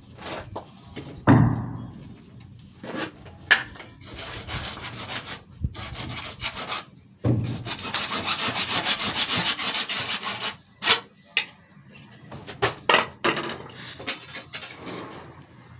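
Fast, even scraping strokes on a hard material during plumbing work, in two long runs, with a few sharp knocks between them.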